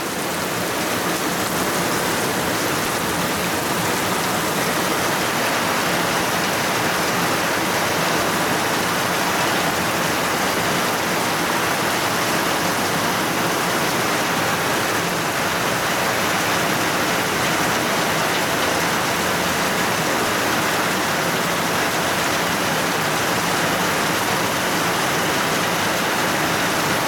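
Heavy rain falling steadily in a thunderstorm, a loud, constant hiss that swells a little over the first couple of seconds.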